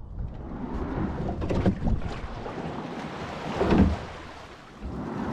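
Rowing eight under way: water rushing along the hull and oars working through the stroke, with wind buffeting the microphone. The sound surges with the strokes, loudest a little under four seconds in, then falls away briefly before picking up again.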